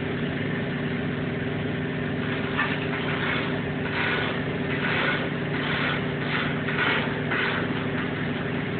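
Chipping hammer striking and scraping slag off a fresh vertical stick weld on steel plate, in a run of short knocks about two a second from about two and a half seconds in. A steady engine drone runs underneath.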